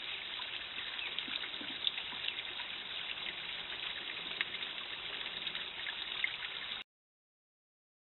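Steady trickling-water hiss with a few faint ticks, heard through a trail camera's built-in microphone, muffled with no treble. It cuts off abruptly about seven seconds in.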